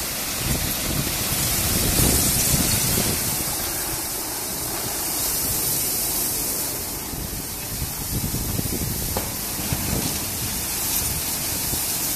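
Berry BR-5V automatic rollover car wash running, its rotating cloth brushes scrubbing a car under water spray: a steady rushing hiss with an uneven low rumble underneath.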